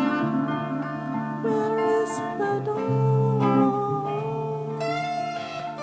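Background music, with held notes that slide in pitch.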